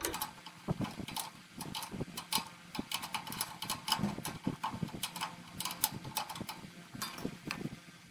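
Irregular light clicks and small metallic knocks of hands working the new attic fan motor and its clamping ring into place.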